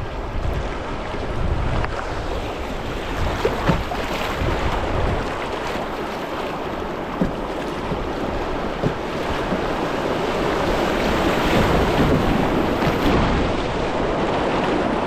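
River water rushing and splashing around a kayak, with wind buffeting the microphone. A few sharp knocks come through, and the water grows louder past the middle.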